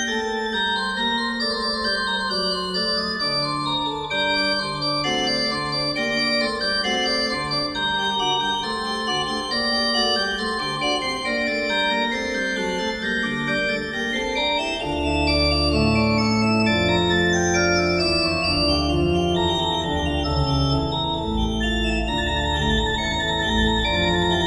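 Instrumental organ music with held notes and a moving melody. A deeper bass part comes in about fifteen seconds in, and the music grows a little louder.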